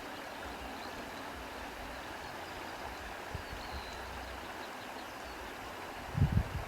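Wind blowing through grass: a steady rustling hiss, with low wind buffeting on the microphone that peaks in a strong gust near the end.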